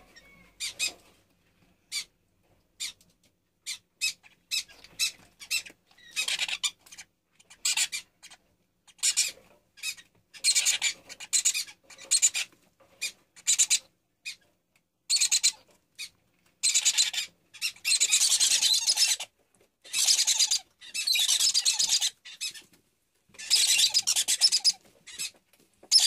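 Fischer's lovebird nestlings giving raspy, hissing begging calls. The calls start as short, scattered bursts and become longer and more frequent, running into near-continuous rasping bouts of a second or more toward the end.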